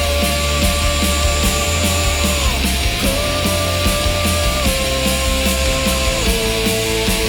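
Rock background music with distorted guitar, a steady drum beat and held melody notes that step between pitches.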